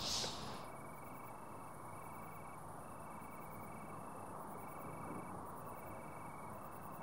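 Crickets chirping: short, evenly spaced trills at two slightly different high pitches, taking turns, over a faint background hiss.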